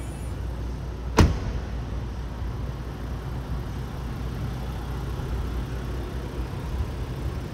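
A car door shuts once with a sharp thud about a second in, over the steady low hum of the 2019 Range Rover Sport HST's turbocharged 3.0-litre straight-six idling.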